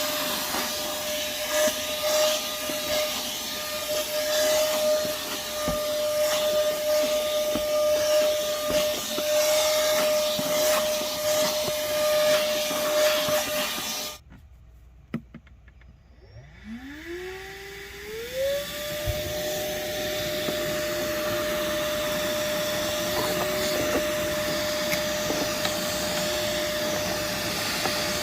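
Moosoo 18V cordless vacuum running with a steady whine and the rush of suction. About halfway through it cuts off suddenly. A couple of seconds later it starts up again, its whine rising in pitch as the motor spins up, then runs steadily.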